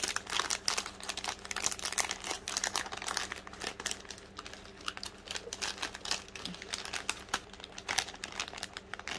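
Thin plastic pouch crinkling and crackling in the hands, with many irregular small crackles as a charm is wiggled out of it.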